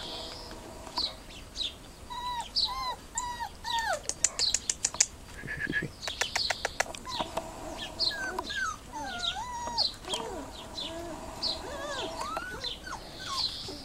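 Dobermann puppies whining and yelping in many short cries that rise and fall in pitch. A quick run of sharp clicks comes about four seconds in.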